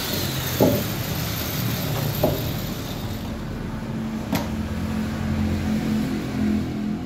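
Solid wooden chair parts knocking together three times as the backrest and seat boards are set in place, over a steady low engine drone.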